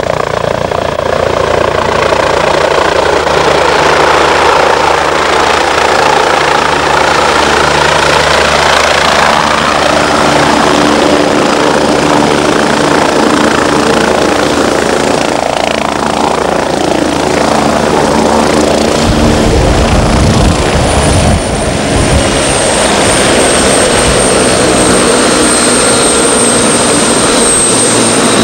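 MBB Bo 105 helicopter with its rotor beating and its twin turboshaft engines running, as it comes down from a hover onto the ground. About two-thirds of the way through, a heavy deep rumble sets in. Over the last part, a high turbine whine rises and then holds steady.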